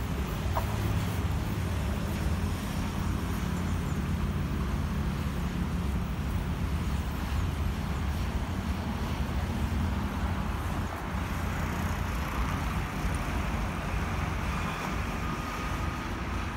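Steady low rumble of a diesel train's engine moving away down the line, easing off slightly after about ten seconds.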